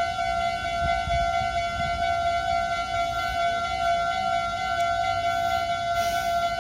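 Japanese railway level-crossing warning bell ringing steadily, a high electronic tone that does not rise or fall. A low rumble runs beneath it, strongest about a second in.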